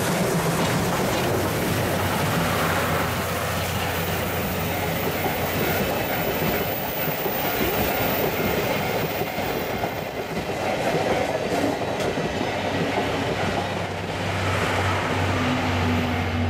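Passenger coaches of a steam-hauled train rolling past at close range, their wheels clattering over the rail joints. Near the end the rolling thins out as the last coach goes by, and a steady musical tone starts to come in.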